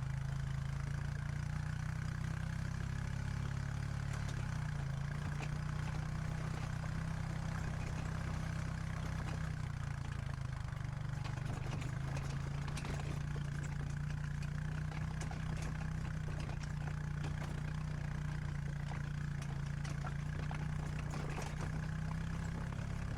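Vehicle engine running at a steady speed while riding, its pitch shifting slightly, with a few faint clicks and rattles in the second half.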